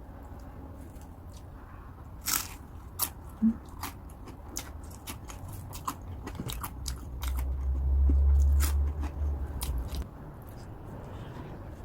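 Close-up crunching and chewing of a crisp, salty snack: a scatter of sharp bites and cracks. A low rumble about seven seconds in lasts some three seconds and is the loudest sound.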